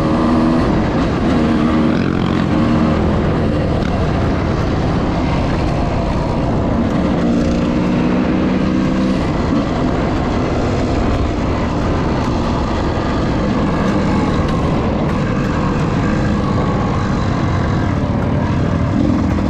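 Off-road enduro motorcycle engine running under way, its engine note coming and going over a steady rush of noise.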